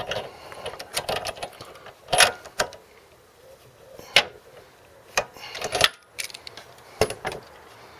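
Metal tools and parts clinking and rattling in irregular knocks, with a few sharper clanks, as the HT lead and spark plug are worked off a small Briggs & Stratton mower engine.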